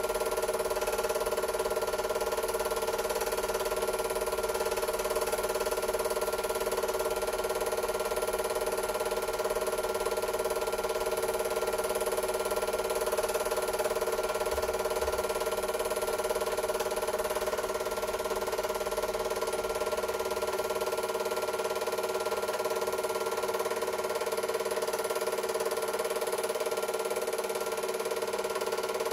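Super 8 film projector running: a steady mechanical hum of several fixed tones over a faint hiss, unchanging throughout.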